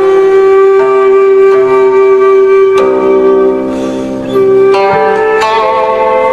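Instrumental music: a flute holding long, sustained notes over plucked strings, with a few sharp plucked notes.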